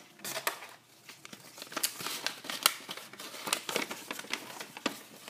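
A paper invoice being handled and unfolded: irregular paper crinkling and rustling, with sharp crackles several times a second.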